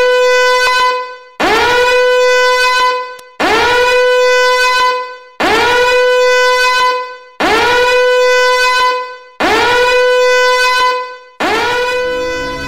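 Warning alarm horn sounding in repeated blasts, one about every two seconds. Each blast swoops briefly up in pitch and then holds a steady, buzzy note for about a second and a half.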